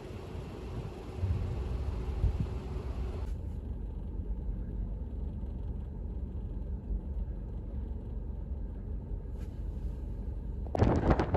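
Blizzard wind buffeting the microphone as a steady low rumble, with a sudden louder gust of rushing wind noise near the end.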